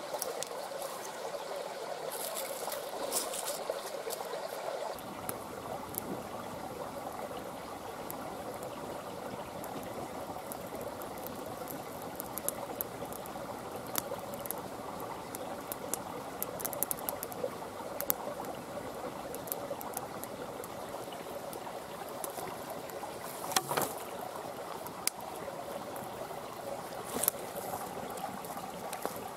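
River water flowing steadily, with a few short sharp snaps or clicks, two of them standing out near the end.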